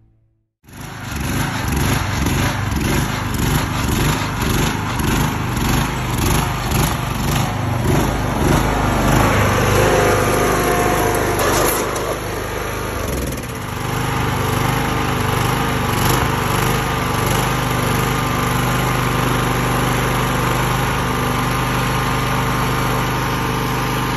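A 20 hp Kohler Command lawnmower engine running on a go-kart. It starts abruptly about half a second in, rises and falls unevenly through the first half, then settles into a steadier run from about halfway through.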